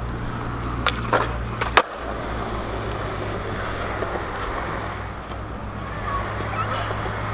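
Skateboard wheels rolling on pavement, with a few sharp clacks about a second in and a loud slap of the board just before two seconds as a trick is popped and landed. After the landing the wheels keep rolling steadily.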